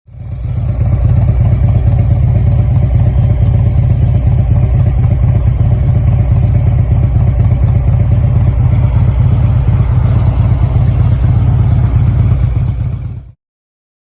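Motorcycle riding at road speed: engine drone mixed with heavy wind buffeting on the microphone. It fades in at the start and cuts off abruptly near the end.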